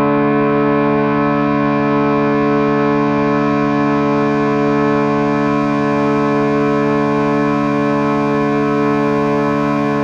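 Ambient meditation drone music tuned to 432 Hz: a steady chord of held tones that sustains without a beat or any change.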